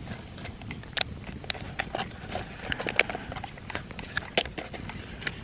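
Small wood campfire crackling, with irregular sharp pops about a second apart, together with the rustle of a paper packet being shaken out into a metal camp mug.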